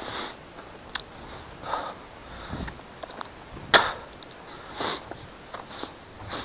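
Footsteps crunching on dry, stony field soil and grass at a walking pace, about one step a second, with a sharper crack about four seconds in.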